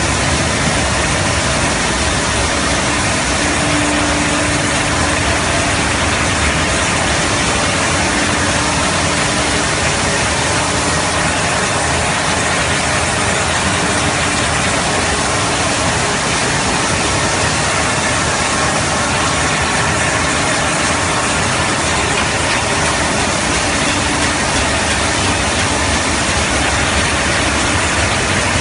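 Steady machinery noise of a running industrial belt cooking line with gas oven and steam tunnel: an even rushing noise with a faint hum that comes and goes.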